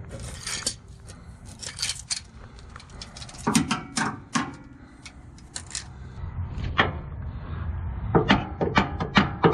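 Sharp metallic knocks as the rusty starter motor of a Ford F-150 is thumped: three blows in the middle, then a quicker run of about five near the end. Thumping the starter is a test on a truck that won't crank, where the starter is suspected.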